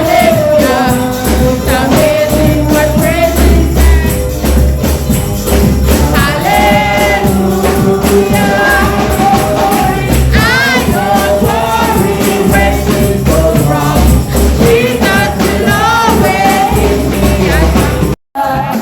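Gospel singing by a group of voices with a tambourine and a band keeping a steady beat, as in church worship. The sound cuts out abruptly for a moment near the end.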